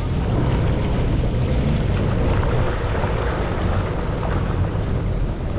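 Jet ski engine running steadily under way, with wind buffeting the microphone.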